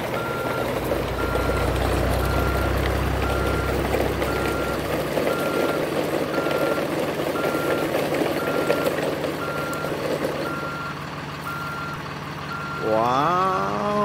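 Truck sound effect: a reversing alarm beeps about once a second over a truck engine's running noise, with a deep rumble for the first few seconds. The beeping stops near the end, when a brief pitched sound slides down in pitch.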